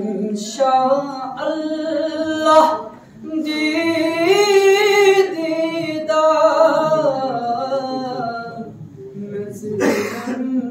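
A man singing a naat, an Urdu devotional song, unaccompanied, in long held phrases with wavering notes and short pauses between them. A short burst of noise cuts across the voice near the end.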